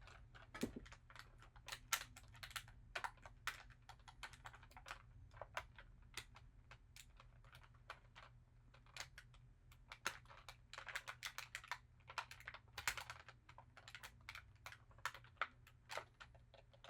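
Irregular light clicks and taps of plastic packaging and a plastic toy figure being handled while it is freed from its package, over a faint steady low hum.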